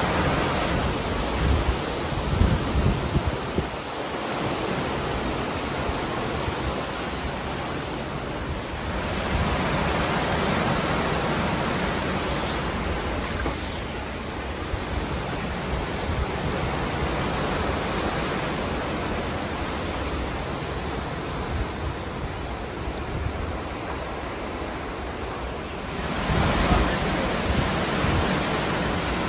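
Hurricane-force wind and heavy rain: a steady rushing that swells and eases in gusts, with deeper rumbling gusts a couple of seconds in and again near the end.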